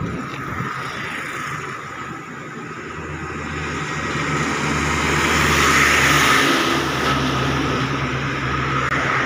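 A large road vehicle, a truck, approaching and passing close by. Its engine hum and tyre noise grow louder to a peak about six seconds in, then ease off only slightly.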